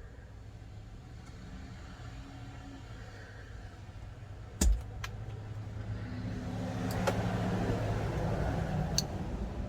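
Steady low hum of the running 1995 GMC C1500 pickup, with one sharp knock a little under halfway and a few light clicks from work on the wiring. A rushing noise swells louder in the second half.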